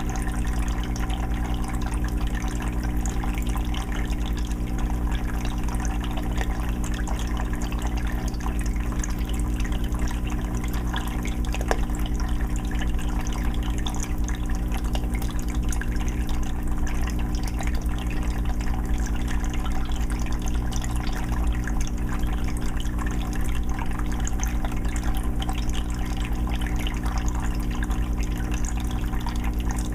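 Aquarium water filter running, with water bubbling and dripping into a 20-gallon fish tank over a steady low hum from the filter.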